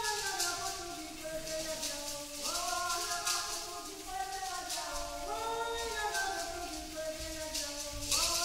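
Live opera music: several voices sing long held notes in parts, each phrase starting with an upward slide, over a shaken percussion rattle sounding throughout.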